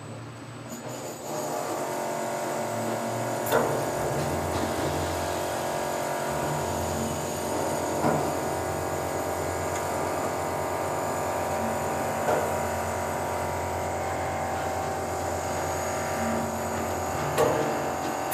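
Potain MCT88 tower crane's electric drive motors running steadily with a whine, heard from inside the operator's cab while a load is moved. A sharp click comes about every four seconds.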